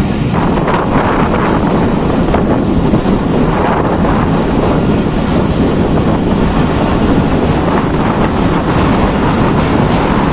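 Passenger train coaches running along the track, heard from an open window of the moving train: a steady, loud rumble of wheels on rail.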